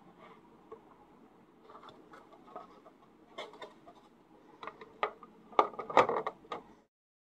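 Plastic lid of a Frisk Keep Wet palette being fitted onto its tray and pressed shut: soft handling rustles, then a run of plastic clicks and knocks, loudest and closest together about six seconds in.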